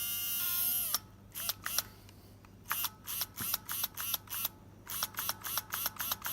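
A brand-new King small electric motor driven by a PWM controller whines steadily for about a second. It is then blipped on and off in a quick run of short whines, two or three a second, each rising and falling in pitch. It runs smoothly, "very sweet".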